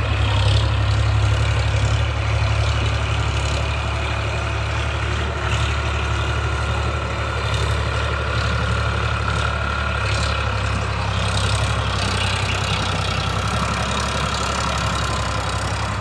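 Eicher 557 tractor's diesel engine running steadily under load as it pulls a trailer heaped with soil up a dirt slope.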